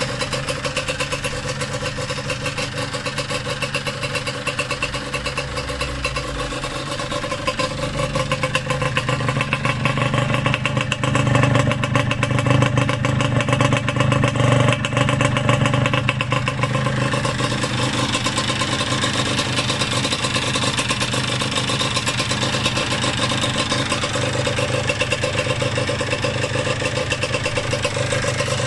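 Yamaha DTR125's single-cylinder two-stroke engine running, revs lifting a little about a third of the way in, then settling back to a steady fast idle.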